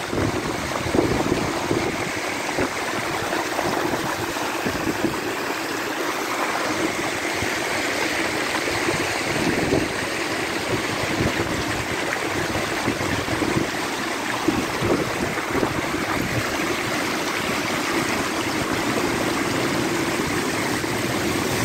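River in full flood, its fast water rushing steadily.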